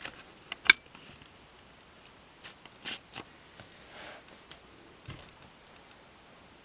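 Faint handling noises in a quiet small room: a few soft clicks and short rustles as the notebook and cookbook are handled, the sharpest click a little under a second in.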